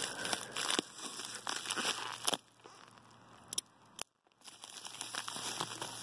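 Plastic mailing envelope crinkling and tearing as a balisong blade slits it open and a hand pulls at it. The rustling goes almost quiet for about two seconds past the middle, then picks up again near the end.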